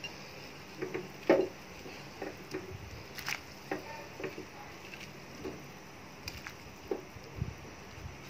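Cauliflower florets dropped one at a time into a pot of boiling tom yum soup: a string of irregular soft plops and knocks, the loudest about a second in.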